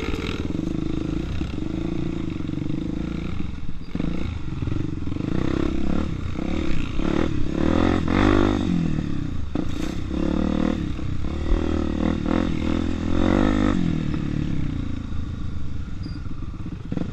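Honda Tornado 250 single-cylinder four-stroke dirt-bike engine being ridden off-road, the revs rising and falling again and again as the throttle is worked. It eases off near the end.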